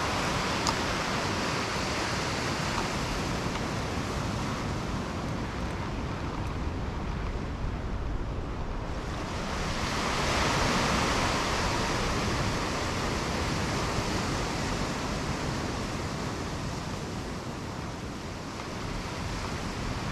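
Ocean surf washing against a rock ledge below, a steady rush of water that swells louder about halfway through, with wind on the microphone.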